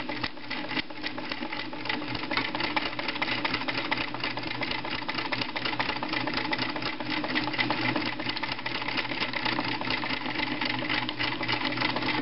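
Pfaff 139 sewing machine running at a steady speed, a fast, even clatter of needle strokes over the hum of its motor, as it free-motion darns with a spring-loaded darning foot. It stops suddenly at the very end.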